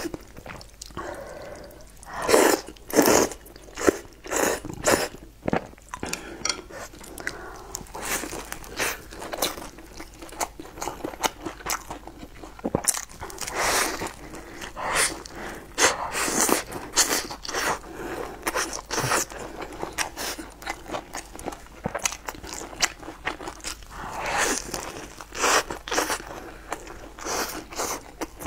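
Close-miked crunching bites and chewing of a crisp, sesame-topped stuffed flatbread: an irregular run of sharp, crackly crunches with softer chewing between them.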